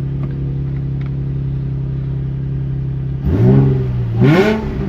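Nissan VQ35DE 3.5-litre V6 idling smoothly, then blipped twice near the end, the pitch rising and falling with each rev. The steady idle means the cylinder-one misfire is cured.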